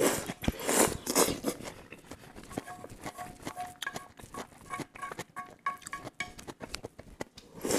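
Chopsticks scraping and clicking in a frying pan as stir-fry and broth are shoveled from the pan into the mouth, with slurping and chewing. In the middle come a run of short ringing taps of chopsticks on the pan.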